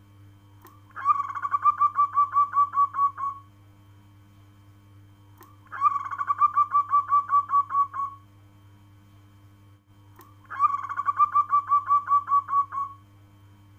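Zebra dove (local perkutut) cooing: three bouts of rapid staccato coos, each a quick run of about a dozen notes lasting a little over two seconds, repeating about every five seconds.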